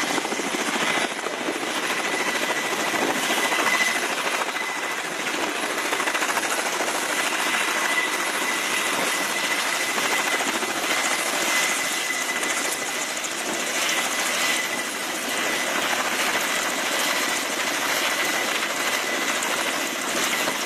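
Kamov Ka-27 Helix coaxial-rotor helicopter hovering close by: a steady, loud rotor and engine noise with a thin, high, steady whine running through it.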